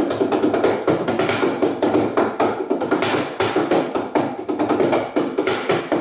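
Background music with a steady percussive beat.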